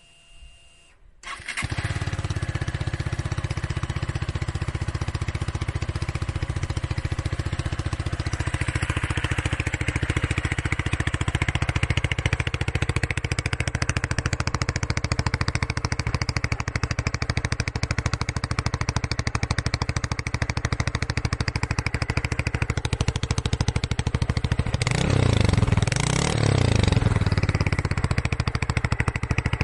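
Motron Revolver 125 motorcycle engine starting about a second in, then idling steadily. It is revved briefly, rising and falling in pitch, near the end.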